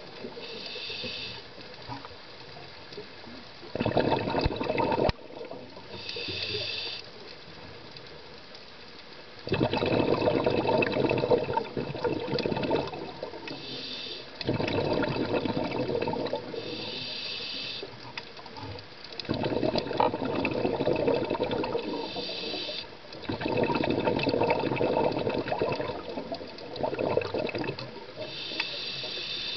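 Scuba diver breathing underwater through a regulator, several breaths in a row. Each breath is a short hiss on the inhale, followed by a few seconds of bubbling as the exhaled air escapes.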